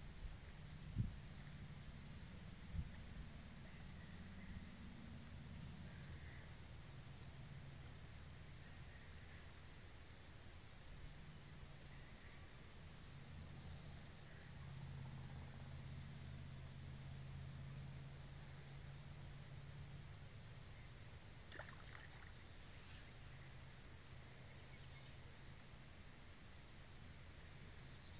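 An insect chirping in short high-pitched pulses, about two a second, over a faint low rumble.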